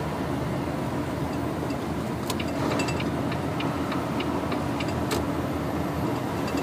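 Inside a heavy truck's cab: the Volvo VNL 670's diesel engine and drivetrain running as a steady drone under load, with road noise. A run of light clicks comes in about two seconds in and stops around five seconds.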